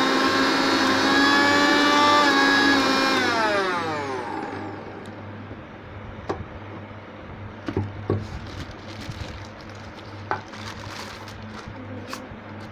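Bajaj Glory 500-watt mixer grinder running with its small chutney jar fitted, a steady high motor whine; about three seconds in it is switched off and winds down with falling pitch. After that come a few light clicks and knocks.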